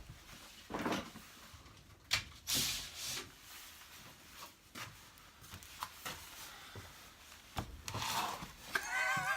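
Scattered knocks, clicks and brief rustles of things being handled in a small room.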